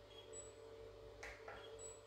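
Two light clicks about a quarter second apart from a washing machine's control panel being handled, against near silence.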